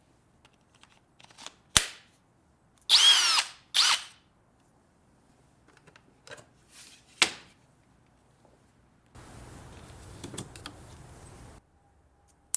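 Hercules HCB92B brushless 20V hammer drill run in two short trigger pulls about three seconds in, the motor whining up and dropping back each time, amid sharp clicks and knocks from handling the tool. A quieter rough noise follows later on.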